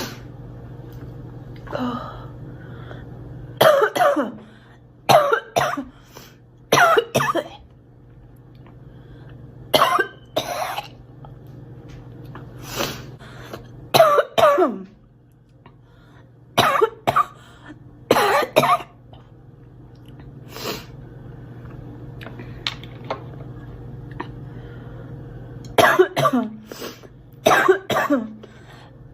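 A girl coughing again and again, in short clusters of two or three coughs every few seconds, with a longer run of coughs near the end. A steady low hum lies under the quiet gaps.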